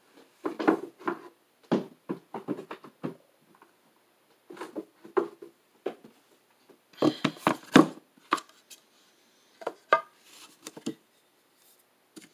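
Irregular knocks and clatter of hard objects being handled and set down on a wooden tabletop, in scattered clusters with short silences between, the loudest a little past halfway. A large benchstone and its wooden box are being brought out and opened.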